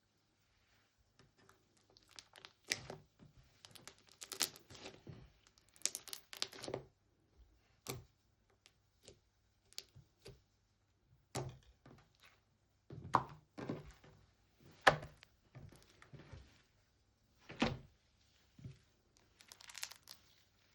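Slime being squeezed, poked and stretched by hand, giving irregular clusters of sharp pops, clicks and crackles.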